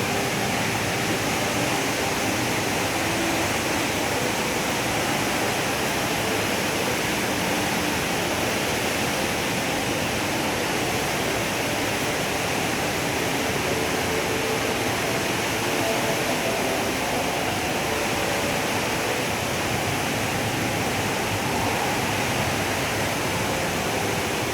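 Steady rush of a large indoor waterfall, the Rain Vortex falling into its pool, an even roar of water with no breaks.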